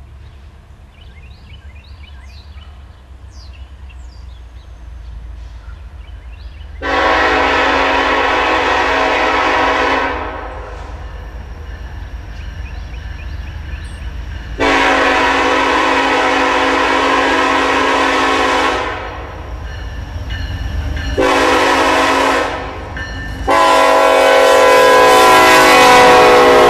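Air horn of an approaching EMD SD70ACe freight locomotive sounding the grade-crossing signal: two long blasts, one short, then a long one still going at the end. Beneath it is the low rumble of the diesel locomotives, growing as the train draws near.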